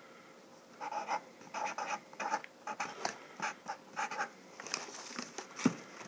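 Writing on the side of a cardboard box: a run of short, squeaky scratching strokes that start about a second in, with a small tap near the end.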